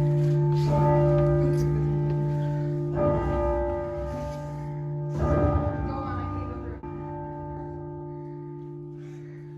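Church bells ringing, heavy strokes every two seconds or so, each leaving a long humming tone that slowly dies away toward the end.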